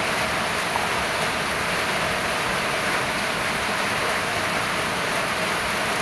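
Steady hiss of a wok of escabeche sizzling and simmering in its vinegar over a wood fire.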